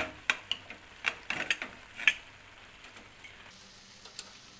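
Aluminium pressure cooker lid being turned and lifted off: a quick run of sharp metal clicks and scrapes in the first two seconds, then a few faint clicks.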